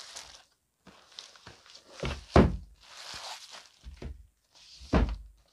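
A boxed set of books being handled and set down: three dull thuds, the loudest about two seconds in, with plastic wrap crinkling between them.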